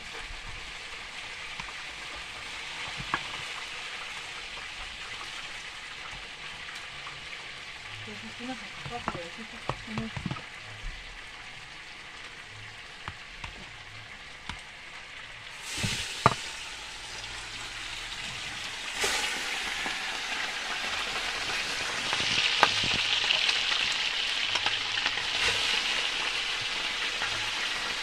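Mojarras (tilapia) frying in oil in a pot over a wood fire: a steady sizzle that grows louder in the second half. In the first half a spoon stirs and clicks against a plastic bowl of chopped vegetables.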